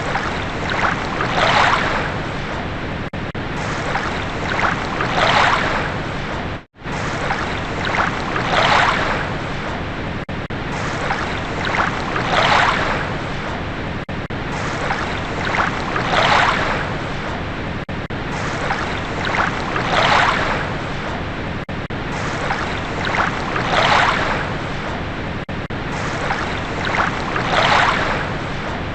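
Ocean waves washing in, a rushing swell about every four seconds over a steady wash of water. The sound cuts out completely for a split second about seven seconds in.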